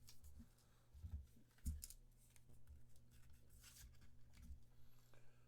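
Faint rustling and a few light taps of trading cards being handled and shuffled, with a slightly louder tap a little under two seconds in.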